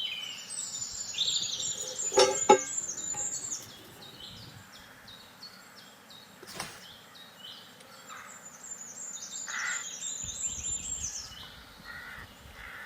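Birds chirping: quick series of short, high, falling notes, in two bouts, with a few sharp clicks about two seconds in and another near the middle.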